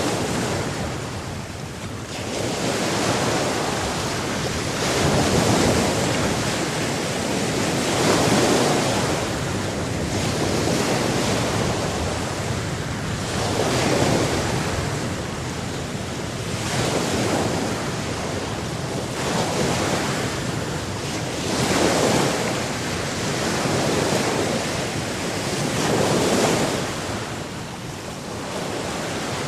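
Sea waves washing in, the surf noise swelling and falling back every few seconds.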